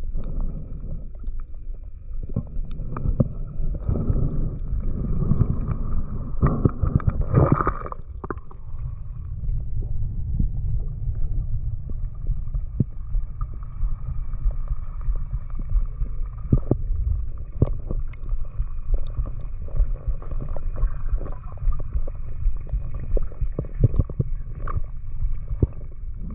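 Underwater sound through a camera's waterproof housing: a steady low rumble of moving water with scattered clicks and gurgles. It stirs louder for several seconds near the start, and two faint steady tones hum underneath.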